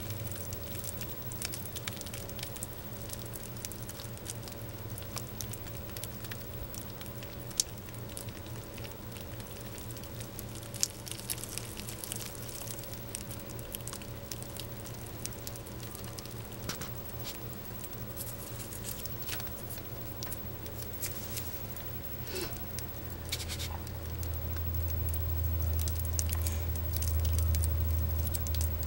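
A steady low hum with scattered faint crackles and ticks over it. The hum grows louder in the last few seconds.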